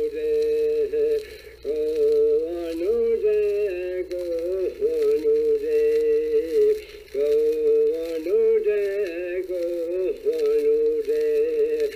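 A man singing a Passamaquoddy song unaccompanied, in long held notes that step down and bend in pitch, phrase after phrase with brief breaths between, over a steady low hum.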